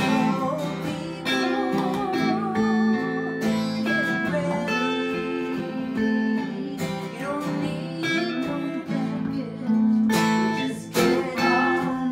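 Acoustic guitar strumming chords in a slow, steady pattern, with a melodic line that bends and wavers with vibrato above it.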